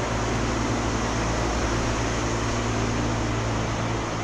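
Steady running of shop fans, one blowing fresh air across and one pulling air out, an even whoosh with a constant low hum.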